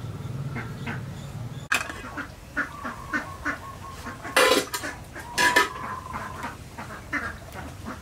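Ducks quacking in short calls, the two loudest about four and a half and five and a half seconds in. A low steady hum runs under the first couple of seconds.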